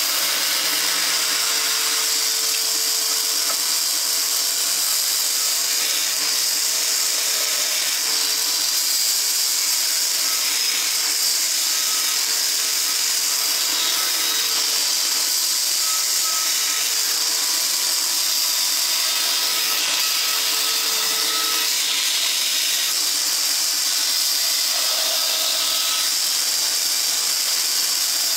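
Bandsaw running and cutting the outline of a wooden spoon from a wood blank: a steady, even hiss with faint tones that come and go as the wood is fed into the blade.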